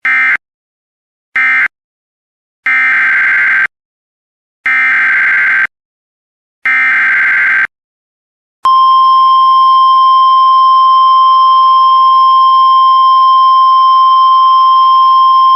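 Emergency Alert System SAME digital data squawks: two short bursts that close the previous message, then three one-second header bursts. About nine seconds in, the steady 1050 Hz NOAA Weather Radio alert tone starts and holds.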